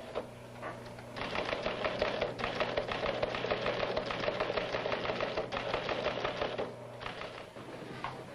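Typing machine keys clattering in a rapid, continuous run for about five seconds, then tailing off near the end, over a steady low hum.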